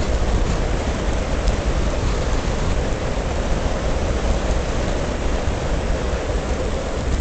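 Steady wind rushing and buffeting over a bike-mounted camera's microphone during a fast downhill ride, with a deep rumble underneath.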